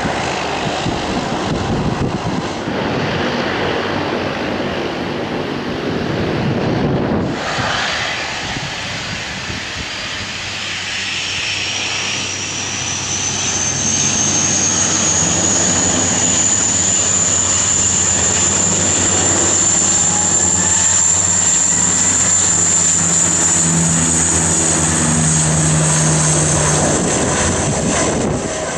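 Dash 8 twin turboprop at takeoff power on its takeoff roll: a steady low propeller drone under a high turbine whine that rises in pitch and then holds. Before a cut in the first seconds, the sound is a more distant aircraft.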